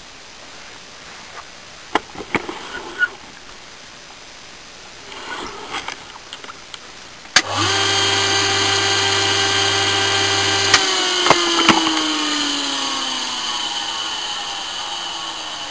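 A few light knocks and rattles, then the electric motor of a 4x36 belt grinder is switched on with a click and hums steadily for about three seconds. It is switched off with another click and whines down in pitch as it coasts to a stop. The motor spins free because the drive belt between the motor and the grinder has gone, so there is no grinding sound.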